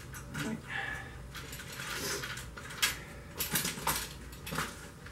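Scattered light metallic clicks, knocks and rattles from a two-wheeled beach cart's metal frame and handle as it is gripped and tipped back on its balloon wheels, with a brief squeak about a second in.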